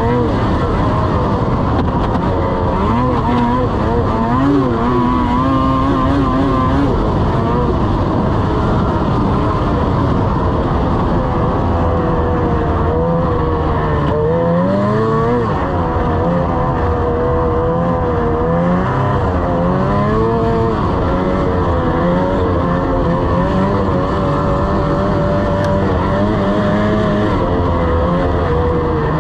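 Lynx RS 600 snowmobile engine running on the move, its pitch rising and falling repeatedly with the throttle, with a brief drop and climb about fifteen seconds in, over a steady rush of track and snow noise.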